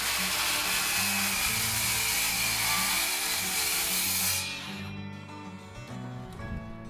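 Cordless circular saw cutting through a thick timber beam, a steady high whine over the noise of the blade in the wood, stopping about four and a half seconds in. Background music plays underneath.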